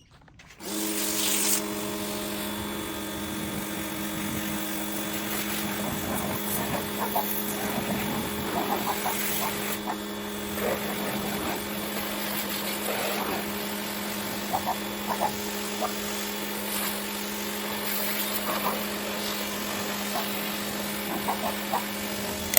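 Parkside PHD 110 G2 electric pressure washer running steadily, a constant motor-and-pump hum with the hiss of the spray and small irregular ticks, starting about half a second in.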